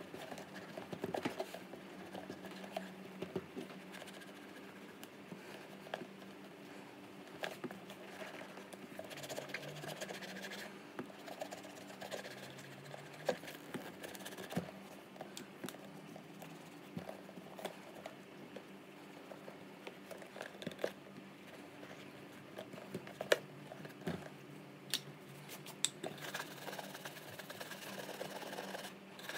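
Bare hands rubbing oil into a black leather White's Semi Dress boot: soft irregular scuffing and rubbing, with scattered small knocks as the boot is turned and handled, over a steady low hum.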